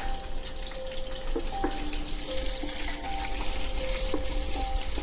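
Food frying in hot oil in a cooking pot, a steady sizzle, with soft background music of held notes.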